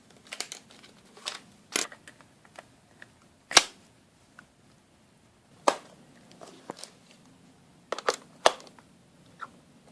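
Irregular sharp clicks and light knocks of small hard objects being handled, about a dozen of them with pauses between, the loudest about three and a half seconds in.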